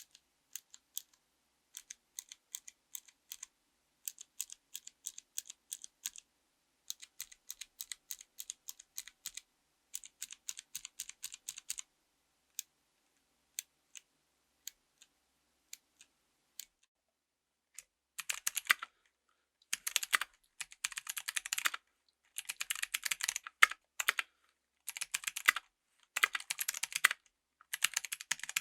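Typing on a mechanical keyboard with Kailh Pro Light Green click-jacket switches: bursts of rapid, crisp keystroke clicks separated by short pauses. About two-thirds of the way through, the typing becomes louder and fuller.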